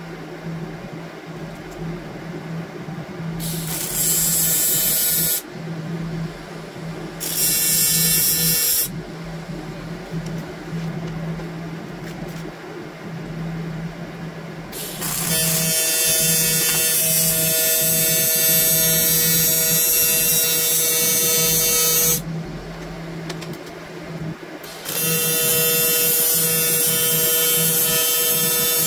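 TIG welding arc from an Everlast Typhoon 230 on an aluminium reservoir: a hissing buzz with a steady tone, struck four times. Two short tacks come a few seconds in, then a bead of about seven seconds from midway, and another starting near the end, over a steady low hum.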